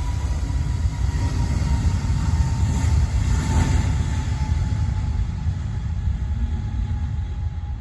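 Aircraft engines passing: a deep rumble under a high whine that slowly drops in pitch, loudest about three to four seconds in and then easing away.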